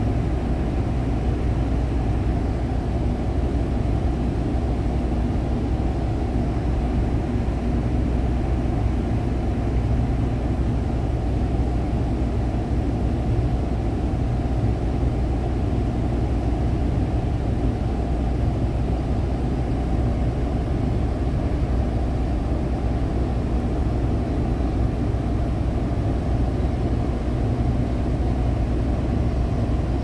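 Steady low machinery drone with a few constant low hums, running unchanged throughout.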